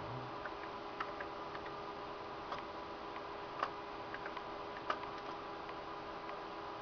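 Scattered sharp clicks, a dozen or so at uneven intervals, over the steady hum of a running desktop computer.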